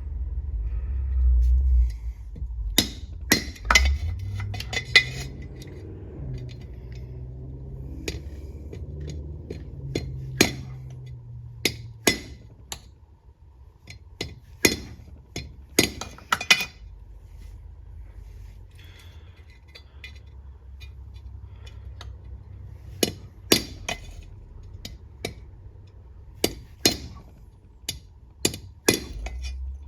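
Hammer tapping on a metal tube to drive a new input shaft seal into the front of a ZF 8HP70 automatic transmission: sharp metallic taps in small irregular clusters, with pauses between.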